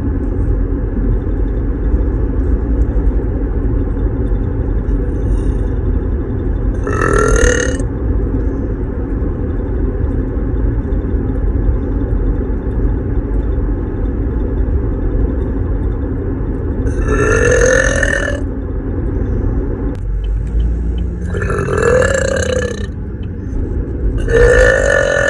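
A woman burping loudly four times, each burp about a second long and starting with a rising pitch, the first about a quarter of the way in and the other three close together near the end. A steady low rumble runs underneath.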